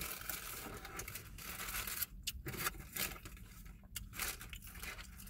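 Paper sandwich wrapper rustling and tearing as it is peeled back from a pita: a continuous rustle for about two seconds, then shorter, scattered rustles.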